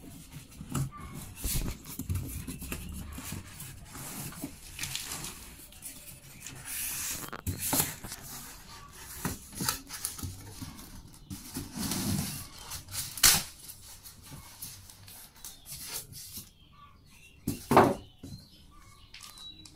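Packaging being handled during a TV unboxing: rustling and rubbing of wrapping, with scattered small clicks and two louder sharp knocks in the second half.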